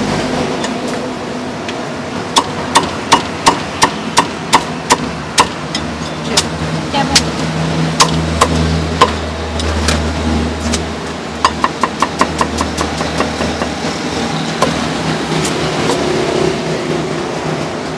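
Meat cleaver chopping cooked meat and chicken feet on a thick round wooden chopping block: a run of sharp chops about three a second, scattered single strokes, then a quick burst of rapid chops. A low steady hum swells in the background midway.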